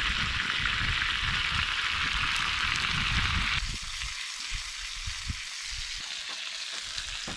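Chicken sizzling as it cooks over a Swedish torch log fire, a dense frying hiss that drops suddenly to a softer sizzle about three and a half seconds in.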